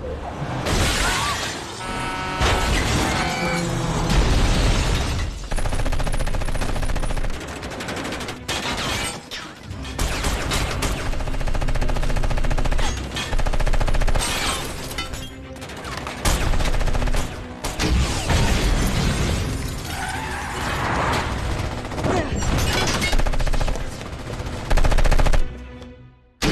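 Action film soundtrack: repeated bursts of automatic rifle fire and heavy impacts over score music.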